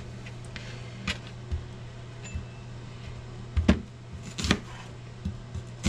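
Chef's knife cutting a sweet Vidalia onion on a plastic cutting board: about seven irregular knocks as the blade goes through and meets the board, the loudest a pair about three and a half seconds in. A steady low hum runs underneath.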